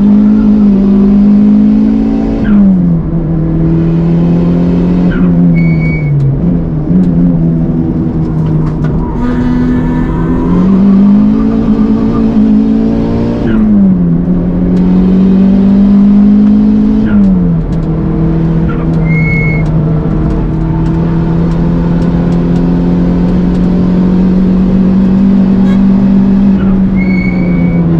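Toyota Starlet Glanza V's turbocharged 1.3-litre four-cylinder engine driven hard on track. Its note climbs and then drops sharply about five times through gear changes, with brief high chirps after some of the drops.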